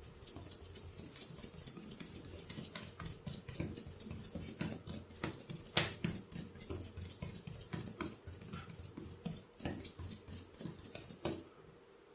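Rapid percussive tapping of a head and shoulder massage, several sharp taps a second, with one louder tap midway; the tapping stops suddenly near the end.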